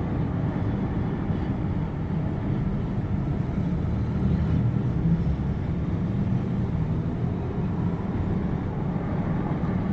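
Steady low rumbling noise with no pitched calls in it.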